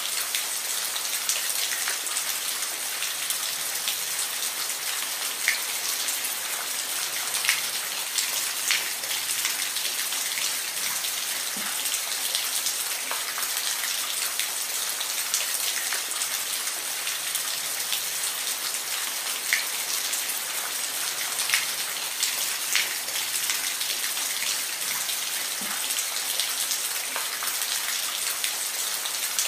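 Steady rain falling, a continuous high hiss with many individual drops ticking close by, a few of them louder.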